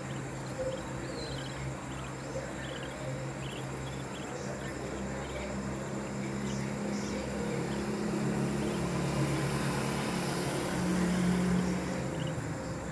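A steady low motor hum that swells in the second half, with faint short high chirps over it.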